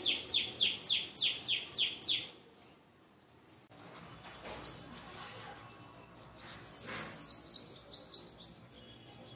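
A bird chirping: a quick series of short, high descending notes, about four a second, that stops about two seconds in. A few single notes follow, then another run of chirps comes near the end.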